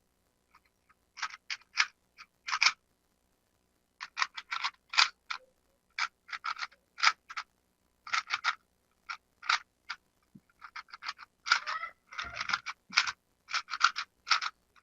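Rubik's cube being twisted quickly, its plastic layers clicking in rapid irregular runs with short pauses between them.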